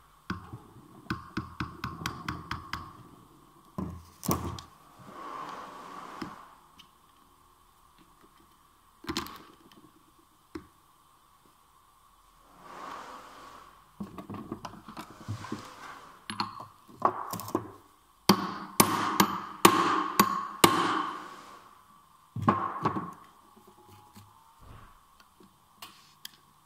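Metal clinks, taps and knocks from hands and tools working on the gear cluster of a partly dismantled manual gearbox. They come as runs of quick clicks and single knocks, with a dense cluster of louder hits about two-thirds of the way through.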